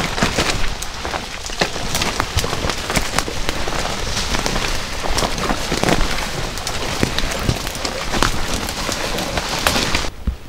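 Leaves and branches rustling and scraping against the camera and clothing as hikers push through dense aspen and brush, a steady crackling full of small snaps and footfalls; it cuts off suddenly near the end.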